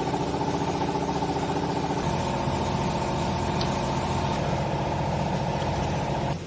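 Hydraulic wool baler's pump unit running under power, a steady machine hum that starts suddenly and cuts off suddenly after about six seconds.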